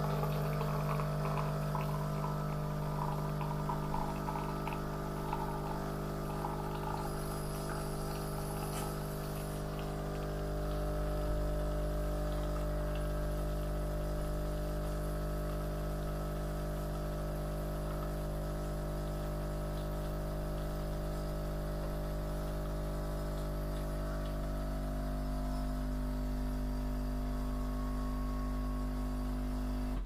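Philips Series 1200 automatic coffee machine brewing: its pump hums steadily while coffee runs out of the spout into a glass, with some crackle in the first few seconds. The hum cuts off suddenly at the very end.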